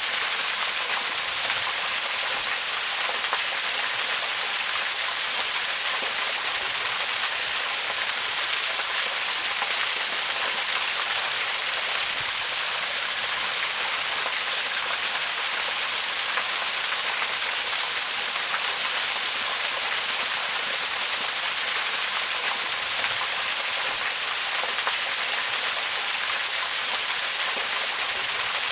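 Waterfall: falling water making a steady, even hiss that sits mostly in the high range, with no breaks.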